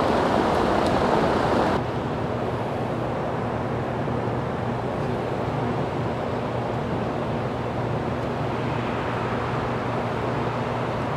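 Large shop fan (evaporative cooler) running steadily: an even rushing noise with a low hum that drops slightly about two seconds in.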